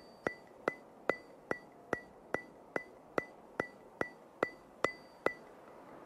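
Steady ticking, about two and a half sharp ticks a second, each with a short ringing tone. The ticking stops about five seconds in.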